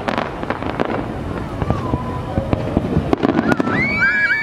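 Aerial fireworks going off in quick succession: many sharp bangs and crackles over a steady rumble, with a high whistle that rises and holds for about a second near the end.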